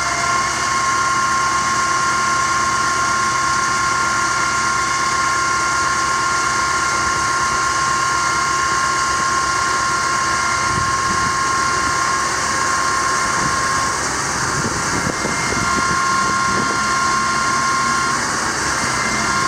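6.6L Duramax V8 turbodiesel running with the PTO engaged, driving the hydraulic pump for the aerial boom. A steady whine over the engine breaks off about two-thirds of the way in, returns briefly, and stops again near the end.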